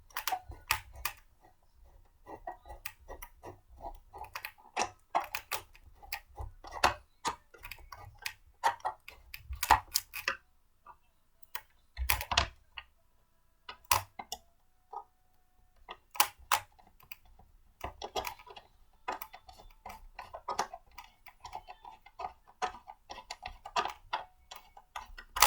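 Irregular clicks and knocks of blender parts being handled and fitted together during assembly.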